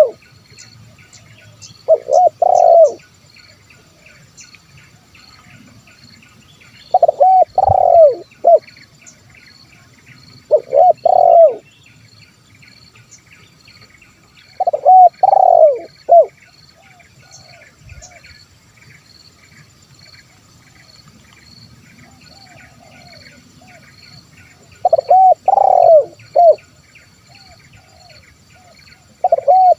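Spotted dove cooing: five loud phrases of several coos each, a few seconds apart with long pauses between, and a sixth beginning at the very end. A steady faint high hiss and faint chirping run behind.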